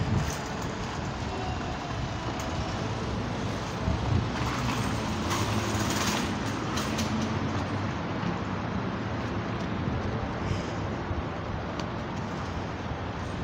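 Street traffic noise: a steady low rumble of passing vehicles, with a louder hiss that swells and fades around the middle.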